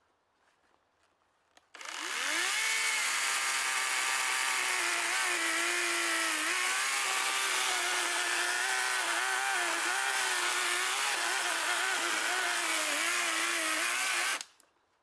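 Hyundai 10-inch cordless battery chainsaw starting about two seconds in, its electric motor whine rising quickly in pitch, then running at speed with the pitch dipping and wavering as the chain cuts into wood. It stops abruptly shortly before the end.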